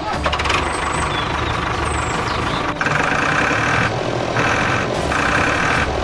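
Tractor engine running steadily with a low rumble. From about halfway, a harsher, higher noise cuts in and out every half second or so.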